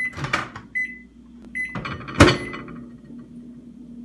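Microwave oven in use: several short high electronic beeps in the first two seconds, then one loud clunk about two seconds in, followed by a faint steady hum.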